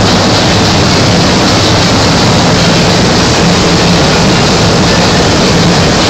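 Loud, steady mechanical running noise with a constant low hum, from machinery or an engine.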